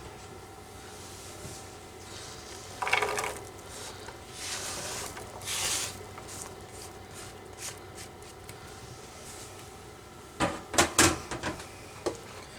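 Cooking sounds as diced onion and bell pepper go into a pan of browning ground beef: a short scrape about three seconds in, a hiss from about four to six seconds, then a quick run of knocks near the end.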